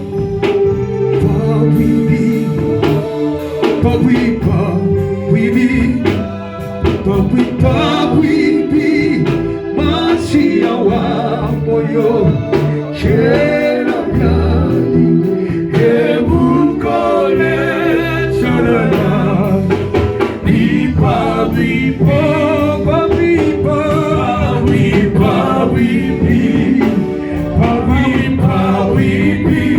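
Gospel music: singing over instrumental backing with a steady beat.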